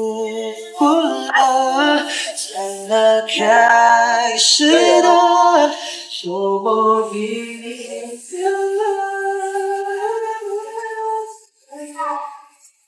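A woman singing a slow melody with long held, wavering notes, with little accompaniment heard; the singing breaks off about a second before the end.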